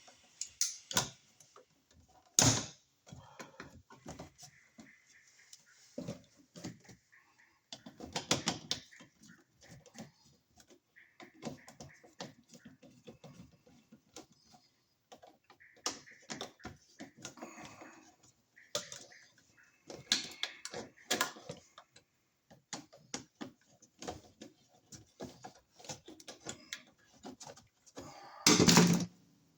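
Scattered small clicks, taps and knocks of hand tools and parts being handled while a wall receptacle is worked on, irregular with short quiet gaps, and one louder thud near the end.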